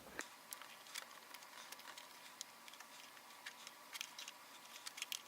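Faint, scattered small clicks and taps of plastic Play-Doh tools and toy pieces being handled while shaping modelling dough, a few slightly louder near the end.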